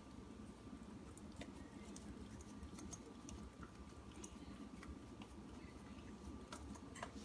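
A dog licking and eating ice cream from a container: faint, irregular wet clicks and smacks.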